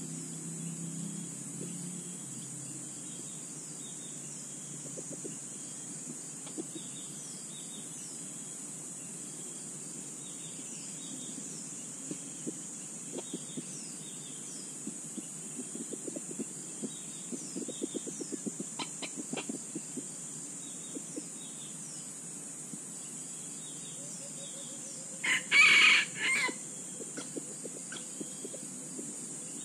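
A rooster crows once, loudly, near the end, over a steady high drone of insects and small bird chirps. Before that comes a run of light crackles in the dry leaf litter.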